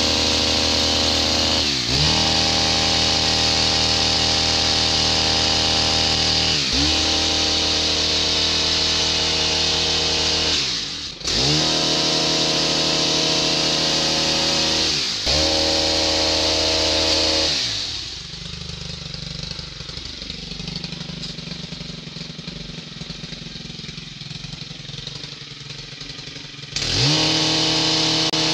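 STIHL KM 131 R KombiEngine driving an HL-KM 145 long-reach hedge trimmer, running at high revs with the blades cutting. The revs dip and recover four times in the first half, then fall to idle for about nine seconds and rise to full throttle again near the end.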